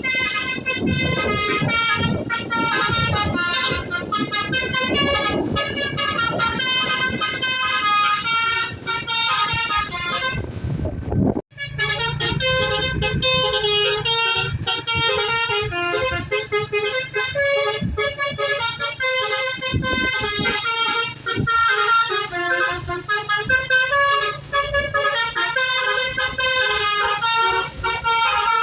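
Bus telolet horn, a Basuri V3 multi-trumpet musical air horn, playing a melody of shifting tones. About eleven seconds in it cuts out for a moment, then plays on, with engine and street noise under the first part.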